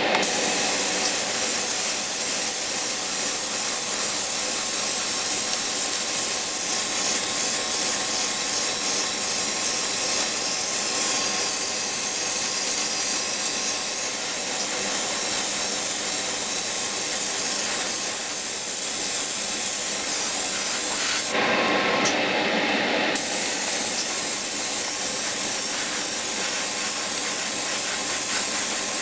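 Airbrush spraying paint: a steady hiss of air and spray, with a spray booth's exhaust fan humming underneath. The spraying breaks off briefly about three-quarters of the way through.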